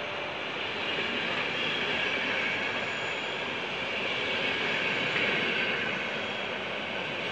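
Passenger train coaches rolling past along a station platform: a steady noise of wheels running on the rails that swells a little as the cars go by.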